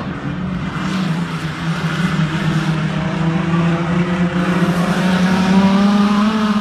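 Several speedway sedan race cars' engines running hard around a dirt oval: a steady, many-engined drone with some rising revs, growing louder toward the end.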